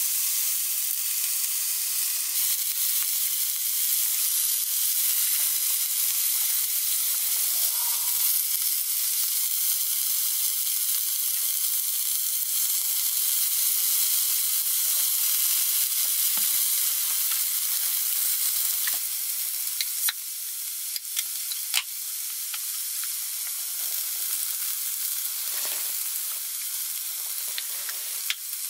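Beef slices sizzling steadily on a small tabletop grill. A few sharp clicks come about two-thirds of the way through, and the sizzle is a little quieter after them.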